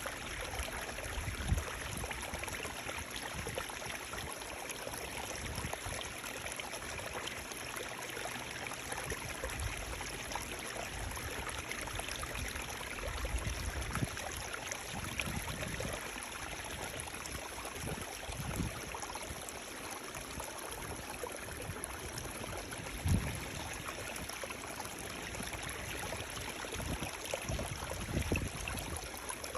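Running water flowing steadily, an even rushing, with a few brief low thuds now and then.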